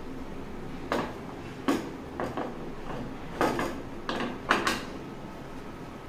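Metal pan supports of a gas stove clattering as they are fitted onto the burners: a run of sharp knocks and clinks, some in quick pairs, the loudest about four and a half seconds in.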